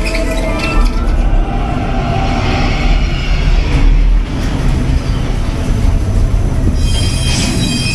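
Roller-coaster ride vehicle of a dark ride running along its track, a loud steady low rumble with rushing noise over it and a brief dip about four seconds in.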